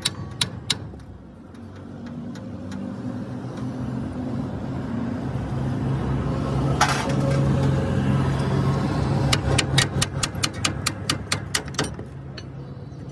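Hammer striking metal at a pickup's rear leaf spring and axle mount: three quick blows at the start, then a rapid run of strikes, about four a second, near the end. A vehicle engine runs in between, growing louder.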